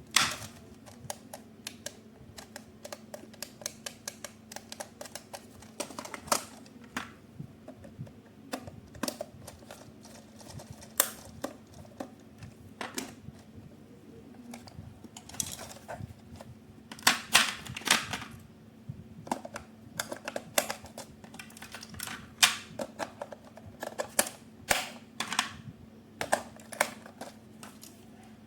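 Irregular clicks, taps and clatters of hands handling an RC toy and its plastic parts or packaging, with louder clusters of clatter near the middle, over a faint steady hum.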